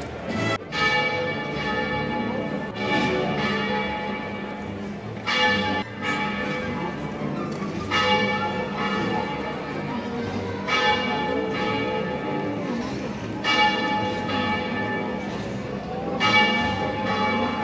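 A church bell tolling slowly. It gives seven even strokes about every two and a half to three seconds, and each stroke rings on with many overtones until the next.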